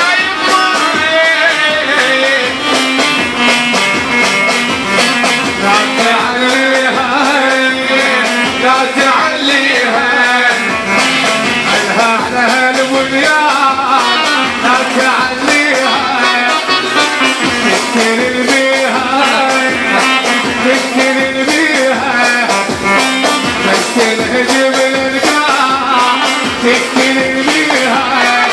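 Iraqi popular party music played live: a long instrumental passage with a wavering, ornamented melody over a steady, fast drum beat.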